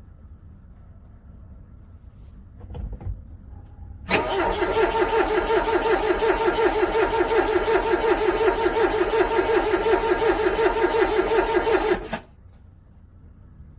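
Car engine turning over on its starter in freezing cold for about eight seconds with a steady, rapid pulsing, then stopping suddenly without catching: a cold engine struggling and failing to start.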